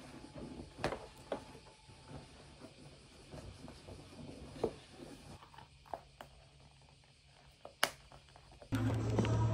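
Quiet handling sounds: soft rustles, knocks and clicks as a shoulder bag and small items are handled on a wooden table, with one sharp click about eight seconds in. Near the end a steady low hum comes in abruptly.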